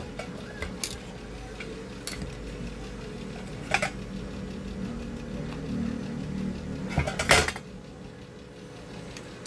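Small metal tools and a circuit board tapping and clinking on a workbench: scattered clicks, with a louder clatter about seven seconds in, over a steady low hum.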